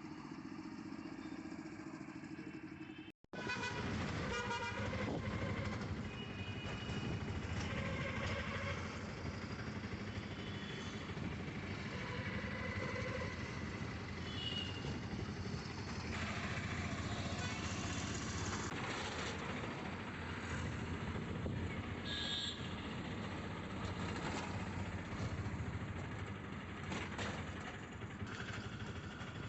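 Busy street traffic: motorcycles and cars running past, with vehicle horns honking several times. The sound drops out briefly about three seconds in, then the traffic continues.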